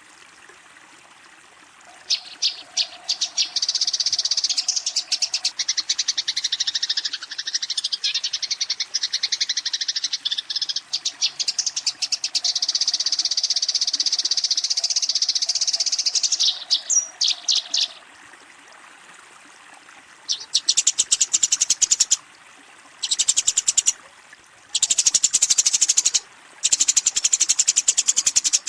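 Eurasian tree sparrows giving rapid, dense chattering calls, the agitated fighting chatter used to challenge a rival. It runs as one long stretch of chatter, then after a pause breaks into several short bursts.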